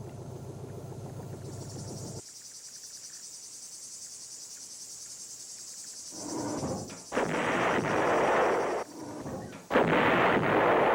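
Artillery guns firing: two loud blasts a few seconds apart, each a rush of noise lasting about two seconds. A steady high-pitched buzz runs beneath, and a low rumble fades out about two seconds in.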